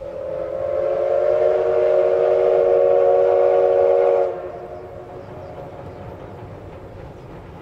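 Steam locomotive whistle blown once, a chord of several close tones held about four seconds, building over the first second and cutting off sharply. The train's running noise then carries on more quietly.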